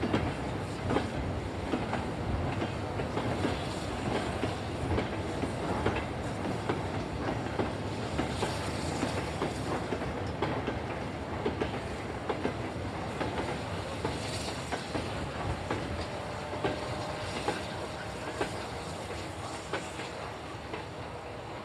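A long goods train of four-wheeled wagons and tank wagons rolling past, its wheels clicking and clattering over the rail joints with a steady rumble underneath. The clatter eases off a little near the end as the brake van goes by.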